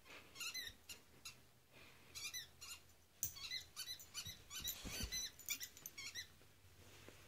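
Squeaky toy ball squeezed again and again, a quick run of short, high squeaks in clusters, played back through a laptop speaker. A dull thump about five seconds in.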